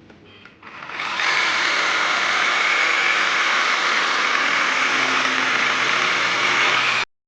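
A small motor spins up over about half a second and runs steadily with a loud rushing noise, then cuts off abruptly near the end.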